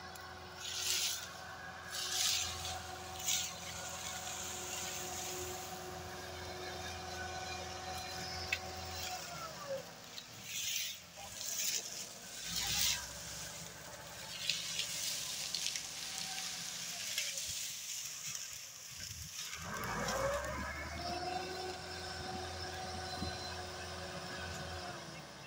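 Massey Ferguson 385 tractor's diesel engine working under the load of a heavily stacked sugarcane trolley, its pitch steady, then dropping away about nine seconds in and rising again about twenty seconds in before holding steady. Several brief bursts of noise come over it, the loudest in the first few seconds.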